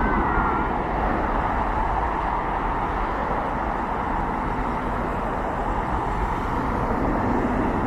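Steady jet engine noise from a Boeing 737-800, an even rumble with no sharp events.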